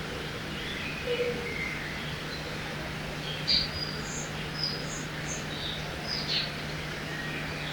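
Forest ambience by a river: a steady rush of flowing water with a low hum underneath, and birds chirping in short, scattered calls, the loudest about halfway through.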